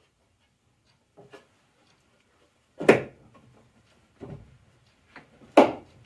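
Wooden boards of a beehive box knocking against the plywood jig as they are pushed into place by hand: two loud sharp knocks nearly three seconds apart, with lighter taps between them.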